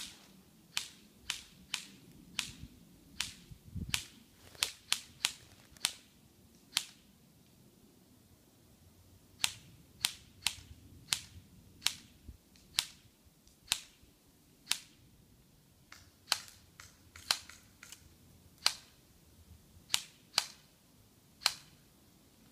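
Airsoft guns firing single shots: sharp, short snaps at irregular intervals, some in quick pairs, with a lull of a couple of seconds before they pick up again.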